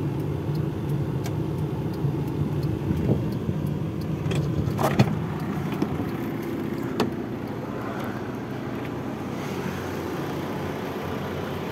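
Daihatsu Charade Classy's engine idling steadily, with a few sharp clicks and knocks, the strongest about five seconds in.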